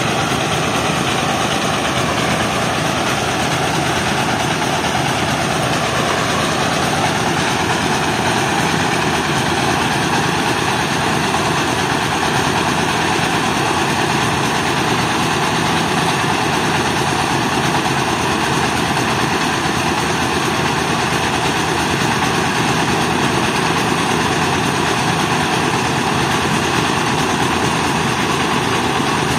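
Mobile rice milling machine running steadily: its diesel engine and the milling machinery make a loud, continuous, even mechanical noise while grain is being milled.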